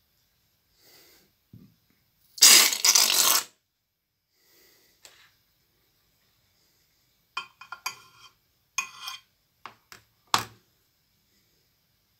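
A slime-filled latex balloon is cut open with scissors, and about two seconds in the slime and air rush out noisily for about a second. Later there are several short crackles as the emptied rubber balloon is squeezed between the fingers.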